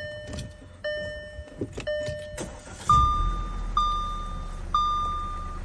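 Audi A4's 2.0 turbo four-cylinder cranked and starting about three seconds in, then settling into a steady idle on its first start with new spark plugs and ignition coils fitted to cure a misfire. A dashboard warning chime repeats about once a second throughout, changing pitch as the engine fires.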